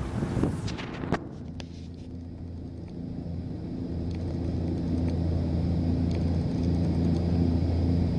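Boat engine running steadily, a low even drone that grows louder over the first few seconds and then holds. At the start, wind noise and a few knocks die away.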